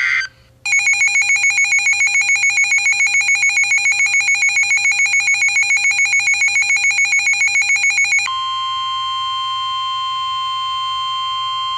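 Emergency Alert System weather-alert tones: the tail of a header data burst, then a fast-pulsing alert tone at about seven beeps a second. About eight seconds in, a single steady alert tone takes over, the attention signal that comes before a spoken warning.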